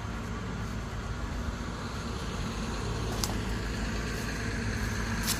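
A vehicle engine running steadily in the background, a low even hum, with two faint clicks about three and five seconds in.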